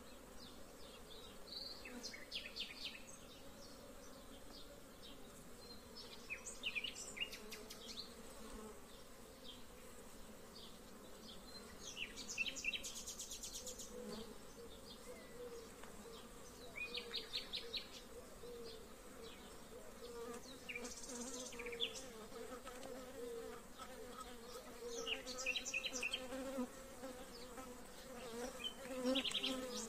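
Honeybee colony buzzing around an opened hive: a steady, wavering hum that grows somewhat stronger in the second half, with short, high, chattering bursts every few seconds.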